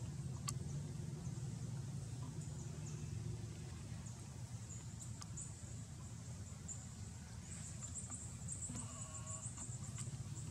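Outdoor ambience: a steady low hum with high-pitched chirping. About nine seconds in comes one short, bleat-like call from a macaque.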